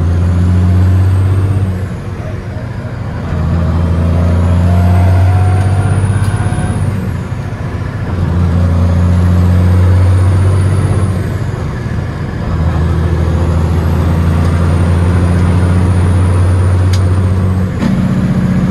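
Big cam Cummins diesel in a 1989 Peterbilt 379 pulling hard through the gears of its 18-speed Eaton Fuller, heard from inside the cab. The drone dips four times at the shifts, and a high turbo whistle climbs through each gear and falls away at each shift.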